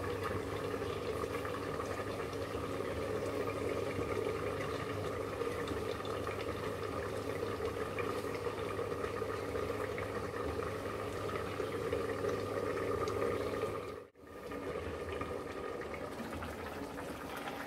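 Ash gourd curry simmering in a covered wok on a gas burner: a steady bubbling hiss that cuts out for a moment near the end.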